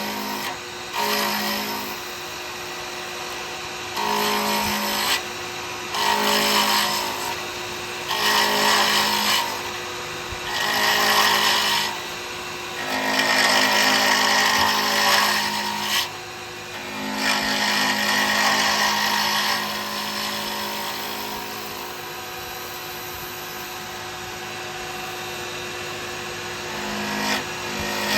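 Wood lathe running at speed with a 12mm round carbide cutter cutting a cast resin and burr pen blank. The cutter goes on in repeated passes of one to two seconds, each a harsh scraping hiss over the lathe's steady hum. The last several seconds are the lathe running alone with no cut.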